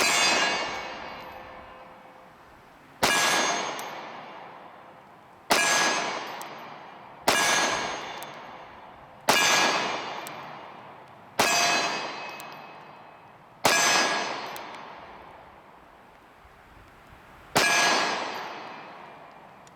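SIG Sauer P365 9mm pistol fired eight times at a slow, uneven pace. Each shot is followed by a metallic ringing that dies away over about two seconds.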